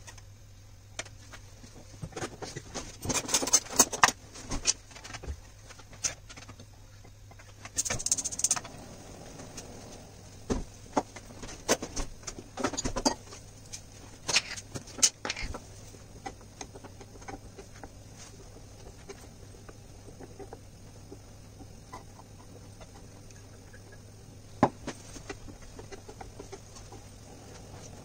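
Kitchen work at a frying pan on a gas hob: scattered knocks and clicks of utensils and pan, a few short bursts of hiss, and a steady low hum underneath.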